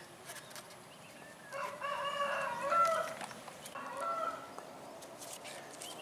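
A rooster crowing once, a drawn-out call of about a second and a half starting about a second and a half in, followed by a shorter call about four seconds in.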